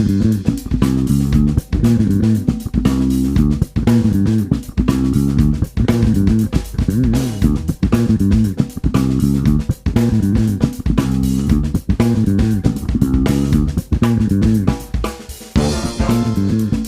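Background music: a band track with guitar, bass guitar and drum kit keeping a steady beat.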